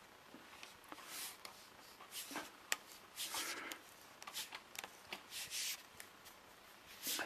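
Plastic pipes being handled, a black poly pipe in a flared PVC pipe end: irregular short rustles and scrapes, with a sharp click about halfway through.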